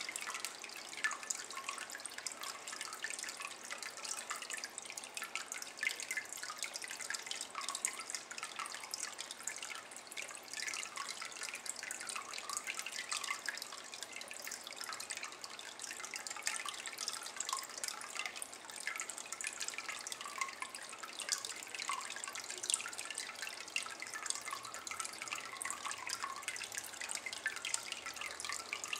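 A thin stream of water falling into a shallow ceramic basin of standing water: a steady trickling splash made of many small, quick plinks.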